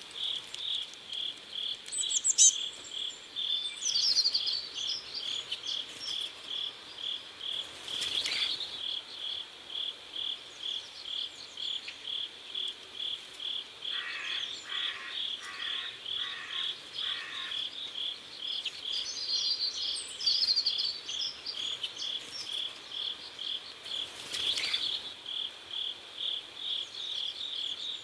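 Crickets chirping steadily in an even pulsing rhythm, several chirps a second, with a few short higher calls over them now and then.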